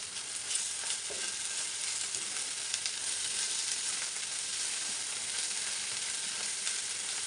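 Chopped onions and freshly added ginger-garlic paste sizzling in hot oil in a non-stick frying pan: a steady sizzle with small crackles, as a silicone spatula stirs the mixture.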